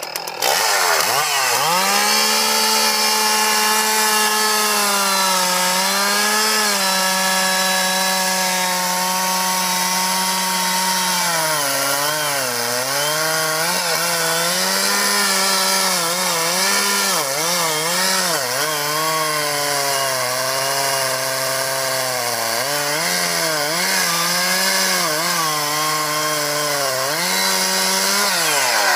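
Large two-stroke chainsaw revving up from idle and then running at full throttle while cutting into a thick tree trunk. Its pitch sags and recovers again and again as the chain loads up in the wood, and it drops back toward idle near the end.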